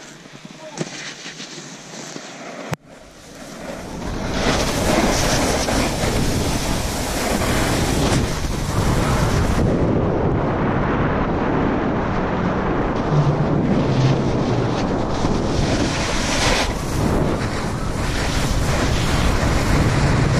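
Wind rushing over the camera's microphone and snow scraping under the edges while riding fast downhill on a groomed piste. It is quieter for the first few seconds, then becomes a steady loud rush from about four seconds in.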